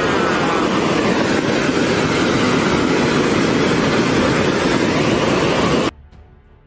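Debris flow of grey mud and boulders surging down a channel and pouring over a weir: a loud, steady rushing noise that cuts off suddenly near the end.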